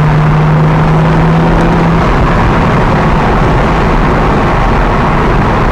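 BMW M235i engine running at a steady pitch for about two seconds, then giving way to a rougher, noisier rumble.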